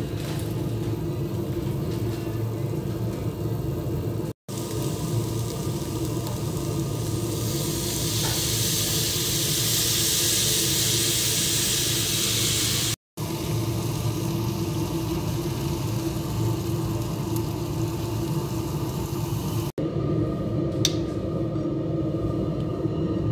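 Chicken pieces frying in a non-stick pan, with a louder sizzle for several seconds in the middle, over a steady low hum. The sound drops out briefly three times.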